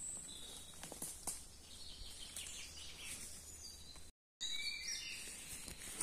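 Faint birdsong of short high chirps, with a few soft crunches of footsteps on dry fallen leaves. The sound cuts out completely for a moment about four seconds in.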